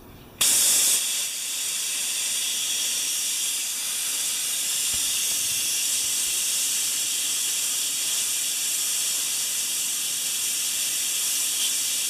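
Compressed air hissing steadily out of an electric wheelbarrow air compressor's tank. It starts suddenly less than half a second in. The tank is being bled down to find the pressure switch's cut-in point.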